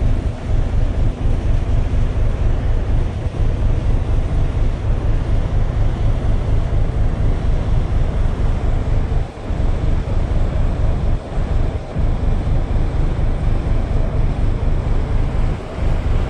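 Wind buffeting the microphone on the deck of an underway cargo ship: a loud, steady low rumble that flutters rapidly, easing briefly a few times.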